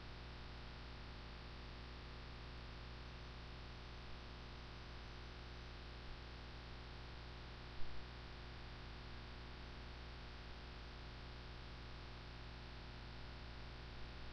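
Steady low electrical hum with a faint hiss underneath, the background noise of the recording. One brief sharp knock or click about eight seconds in.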